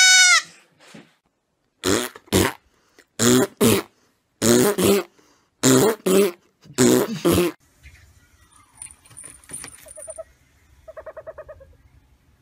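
A goat kid's bleat ends just after the start. Five pairs of short, hoarse sounds follow, about one pair every second, their source unclear. Near the end there are faint ticks and a brief, rapidly pulsing call.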